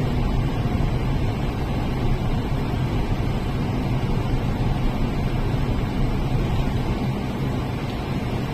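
Steady low engine drone with a constant hum and rushing noise, as of a moving vehicle.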